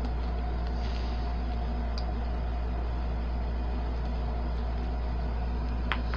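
A steady low hum with no speech, broken only by a couple of faint clicks near the end.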